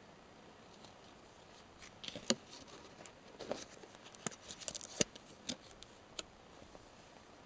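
Paper and card being handled: a card moved in and against a small paper envelope. It gives a scatter of crisp rustles and light taps from about two to six seconds in, the sharpest about two seconds in and five seconds in.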